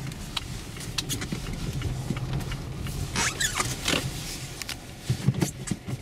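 Dębica Frigo HP2 winter tyres crunching and squeaking over packed snow as the car creeps along slowly, with the engine running low underneath. The crackles come irregularly throughout, with a few louder ones near the end.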